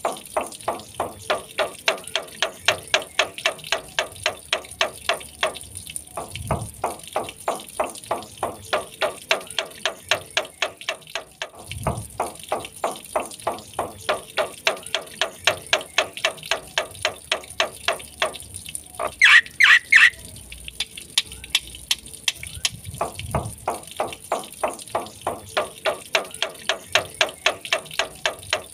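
Black-winged starling (jalak putih) calling in a long run of rapidly repeated notes, about three a second, with a couple of short breaks. About two-thirds of the way through comes a louder, higher burst of notes.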